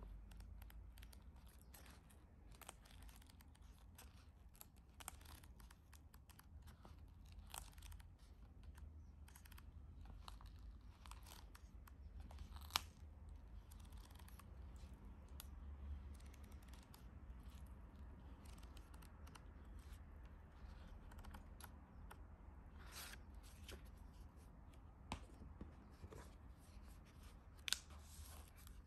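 Quiet handling of packaged decorative craft paper: scattered small clicks, taps and light rustles of paper and plastic. A sharper click comes about thirteen seconds in and another near the end.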